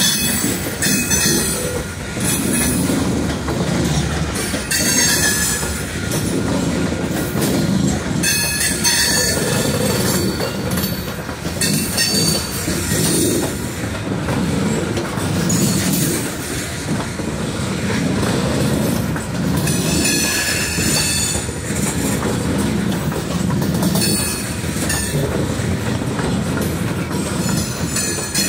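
Norfolk Southern freight train's covered hopper cars rolling past: a steady rumble of steel wheels on rail, with clacking as the wheel sets go by and short high squeals from the wheels every few seconds.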